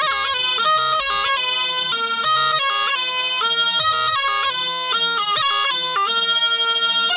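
Tulum, the Black Sea bagpipe, playing a fast melody with many quick note changes, continuous and unbroken.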